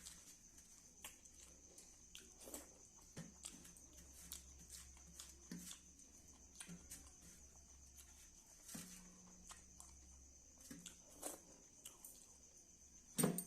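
Faint chewing and mouth sounds of a person eating kadhi pakora with rice: a scattered series of small clicks and smacks over a steady faint high hiss, with a louder sudden sound near the end.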